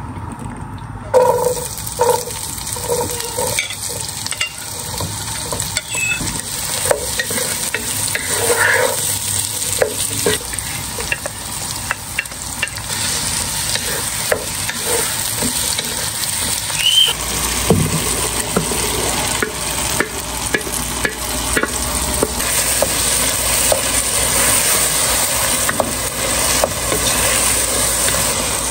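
Food frying in a pan, a steady sizzle of hot oil, with a spatula knocking and scraping against the pan while it is stirred. The knocks are most frequent in the first half, and a low hum comes in past the middle.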